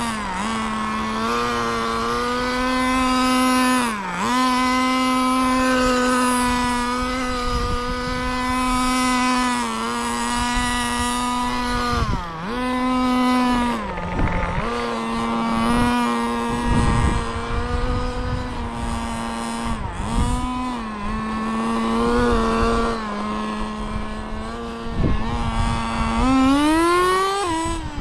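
Kyosho FW06 1/10-scale nitro RC touring car's small glow engine running at high revs as the car drives. It holds a steady high-pitched note that dips briefly several times as the throttle is lifted, then climbs sharply near the end.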